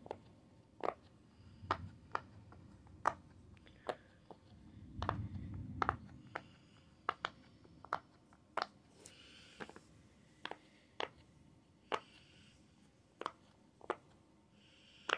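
Silicone pop-it fidget toy being pressed: soft, quiet pops at uneven intervals, roughly one or two a second, with faint handling rustle about five seconds in.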